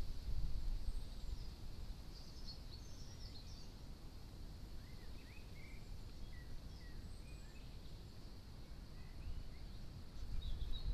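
Outdoor ambience: a low, uneven rumble, strongest at the start and near the end, under scattered short bird chirps and twitters.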